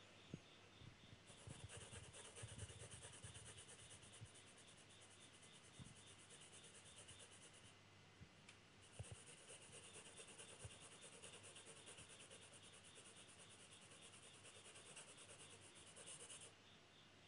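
Faint scratching of a graphite pencil shading on drawing paper: fast, even back-and-forth hatching strokes in two long spells, with a brief pause about eight seconds in.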